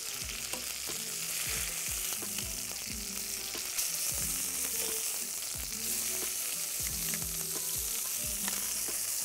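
Chicken breasts sizzling steadily in a hot frying pan, with a utensil moving them around the pan.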